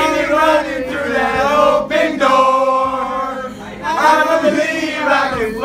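A group of four teenage boys singing loudly together without accompaniment, holding long drawn-out notes, with short breaks for breath about two seconds in and again near four seconds.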